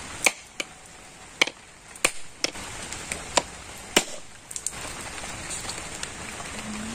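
A whole husked coconut being cracked open by striking it with a heavy curved knife. About ten sharp knocks come at uneven intervals over the first five seconds, until the shell splits.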